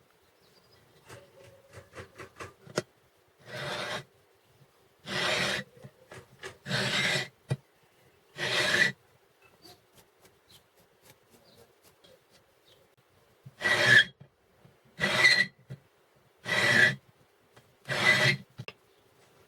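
Hand-turned valve-seat cutter rasping against a valve seat in a MeMZ-2471 cylinder head, cutting the seat chamfer. It goes in eight short scraping strokes of about half a second each, in two groups of four, with a few light clicks before the first stroke.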